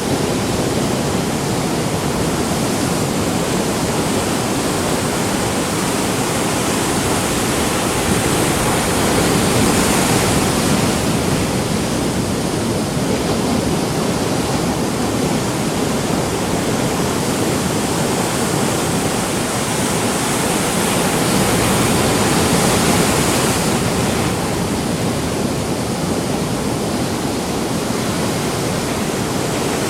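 Ocean surf: a continuous rush of breaking waves, growing louder as a wave breaks about ten seconds in and again a little past twenty seconds.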